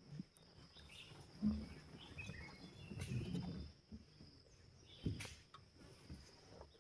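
Forest ambience: insects droning steadily at a high pitch, with a few short bird chirps. Several soft low rustles and thumps are heard now and then.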